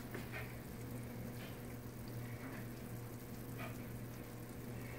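Meat sizzling faintly in a pan in a hot oven, with a few scattered small pops over a steady low hum.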